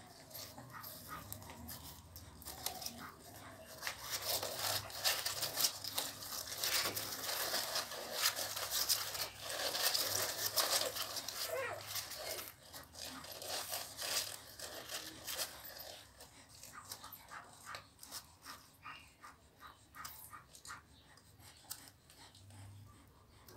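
Newborn pitbull puppies nursing from their mother: a busy patter of wet suckling and smacking with small squeaks and whimpers, thickest in the middle and thinning out toward the end.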